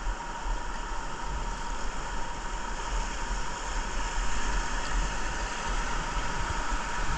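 Steady rush of river whitewater, with a low buffeting rumble of wind on the action camera's microphone.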